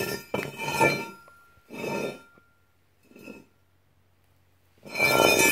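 Steel anvil-shaped object being tipped and shifted by hand on a concrete floor: several separate clinks and scrapes, each with a brief metallic ring, the loudest near the end.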